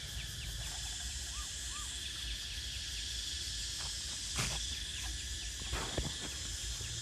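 Steady insect chorus, a high continuous drone made of rapid repeating chirps. Two sharp knocks cut through it about four and a half and six seconds in.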